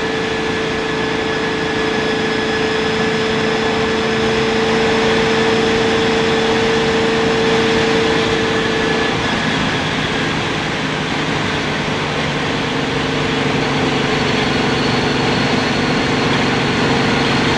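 Open-wheel race car's engine running at a steady pitch on track, heard onboard under a wash of wind and road noise. About halfway through, the main note drops and the engine settles into a lower steady note.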